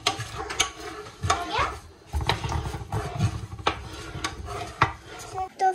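Metal spatula scraping and clicking against a frying pan while stirring dry flour as it toasts, with a metal spoon clinking as it stirs caramelised sugar in a second pan. Irregular sharp ticks and scrapes run throughout.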